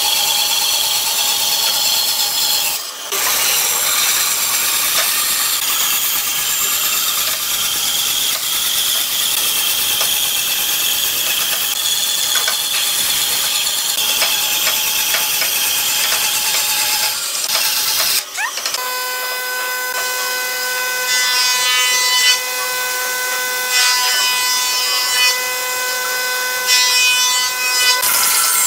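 Bandsaw blade cutting through a thick wooden block, a steady loud hiss of the cut. About two-thirds through, the sound changes to a steady pitched whine of the running saw, with intermittent bursts of cutting noise.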